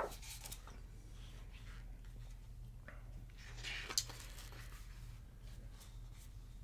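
Pages of a book being turned: faint paper handling, with one louder swish ending in a short snap about four seconds in, over a low steady hum.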